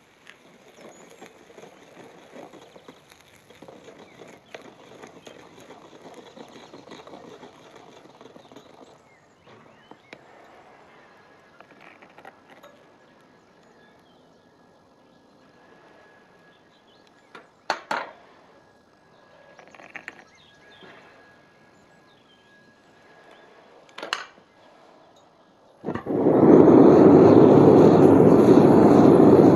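Faint scraping of a steel rod and spoon stirring and skimming molten brass in a furnace crucible, with a couple of sharp metallic taps. About 26 s in, the propane furnace burner comes on loud with a steady rush.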